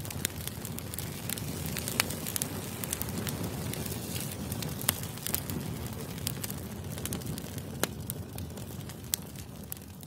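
Open wood fire of split boards and kindling burning: a steady rush of flame with constant fine crackling and a few sharp pops, the loudest about two, five, eight and nine seconds in.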